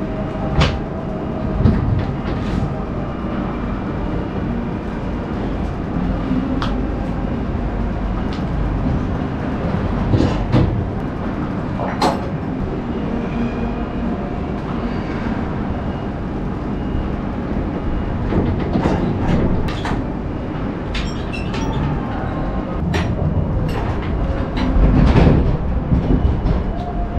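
Metal clanks and knocks of a lorry trailer's rear door locking bars being released and the doors swung open, over the steady rumble of idling diesel lorries. The loudest knocks come near the end.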